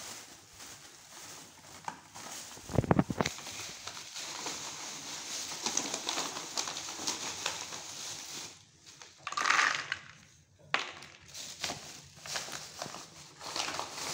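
A cat crunching dry kibble from a dish: a run of small crackling chews. A louder bump comes about three seconds in.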